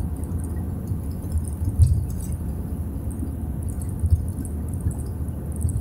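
Low, steady rumble of a car driving on an asphalt road, heard inside the cabin, with a few light knocks and rattles, the loudest about two seconds in.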